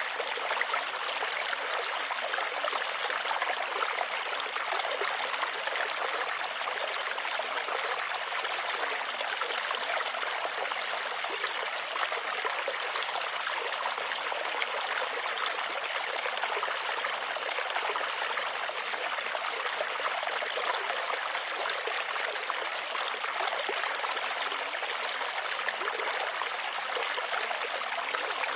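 Running water of a stream, a steady even rush that never breaks.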